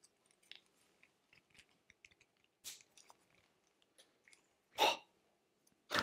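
Plastic action figure being handled and its parts worked by hand: faint scattered clicks and creaks, with one louder short noise about five seconds in.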